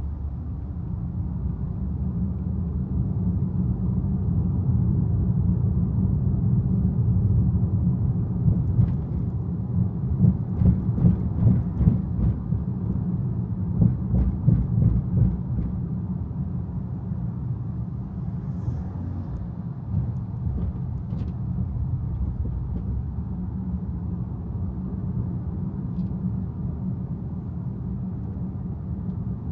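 Car driving: a steady low rumble of road and tyre noise, with a run of uneven thumps from about nine to sixteen seconds in.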